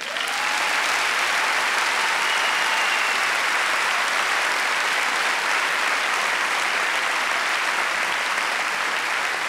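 A large audience applauding steadily, starting suddenly and holding an even level throughout.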